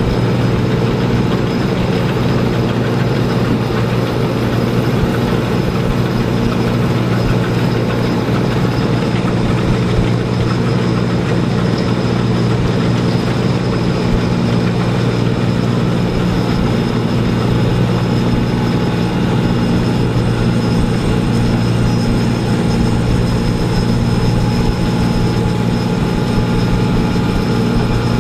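Heavy diesel engine of a Wirtgen W1200F cold milling machine running steadily at constant speed, with a thin high whine held above it.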